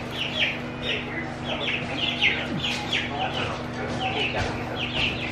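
Young chicks peeping over and over, short falling peeps several times a second with a few overlapping one another.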